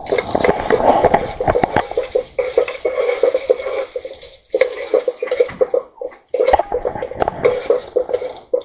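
Ginger and garlic sizzling in oil in a steel pot, with a metal ladle stirring and scraping against the pot in a run of quick clicks and scrapes that pause briefly a few times.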